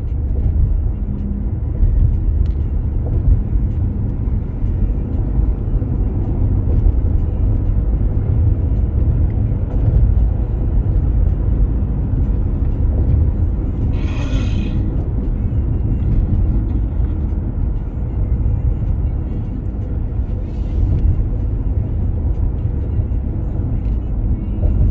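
Steady low road and engine rumble heard from inside a moving car's cabin at highway speed. A short hiss cuts across it about halfway through, and a fainter one a few seconds later.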